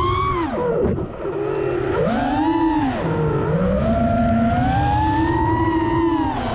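FPV quadcopter's brushless motors and propellers whining, the pitch sweeping up and down with the throttle: it drops sharply about a second in, climbs again, dips near three seconds, then rises and eases off.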